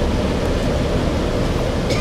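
Cabin noise aboard a Gillig Phantom diesel transit bus with a Voith transmission: a steady low rumble of engine and drivetrain.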